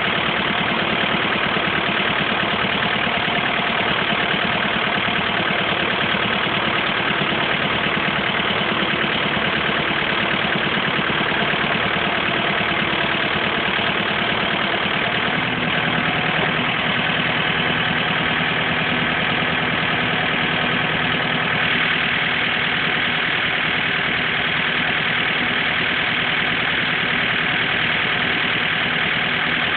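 An engine idling steadily, its pitch shifting slightly about halfway through.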